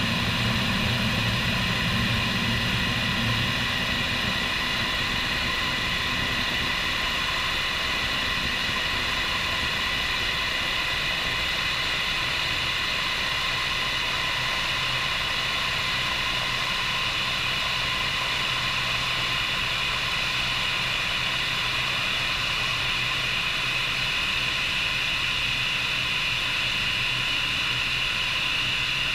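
Bell 430 helicopter's twin turboshaft engines and rotor running steadily: a constant high turbine whine over a broad rushing noise, with a low rumble that fades over the first several seconds.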